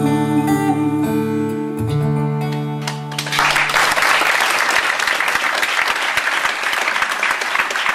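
Closing instrumental chords of a live country ballad ringing out, with one chord change about two seconds in, then audience applause breaking out a little over three seconds in and carrying on.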